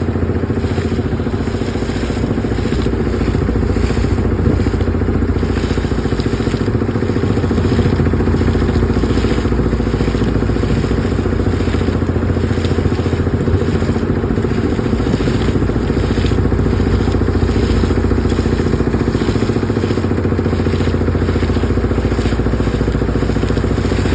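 Engine-driven borewell rig machinery running steadily: a constant loud engine drone with a hum and a few held tones underneath and an uneven hiss over the top.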